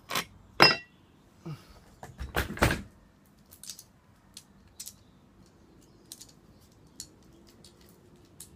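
Metal clanking and jangling as chainsaw guide bars and chains are handled and set down: several loud knocks in the first three seconds, then light clinks and ticks.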